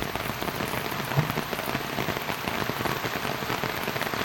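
Steady rain falling, no longer a downpour.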